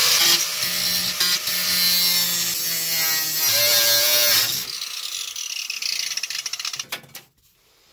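A power tool cutting the car's sheet metal to enlarge a hole for clearance. It runs hard for about four and a half seconds, then winds down and dies away over the next two seconds.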